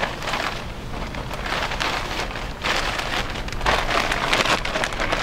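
Clear plastic bag crinkling and rustling as an intercooler is slid out of it: a continuous, irregular crackle.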